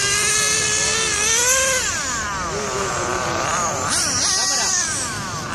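Motors of 1/8-scale RC racing cars whining, several pitches overlapping and rising and falling as the cars speed up and slow around the track.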